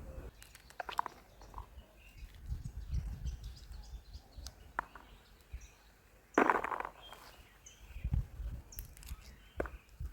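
Outdoor countryside ambience: scattered short bird chirps over a low rumble, with a few faint clicks. A short, loud rush of noise comes about six and a half seconds in.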